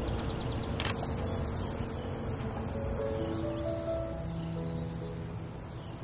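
Steady high-pitched chorus of insects. Soft, sustained low notes of background music come in about halfway through.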